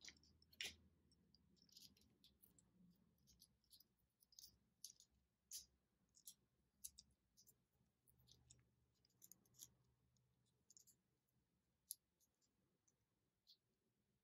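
Faint, irregular clicks and taps of small plastic toy parts handled and fitted together: a grey plastic wheel piece and a blue plastic Kinder toy car body.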